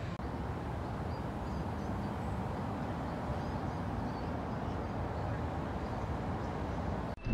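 Outdoor city street ambience: a steady low rumble of traffic, with a few faint high chirps. It breaks off suddenly near the end.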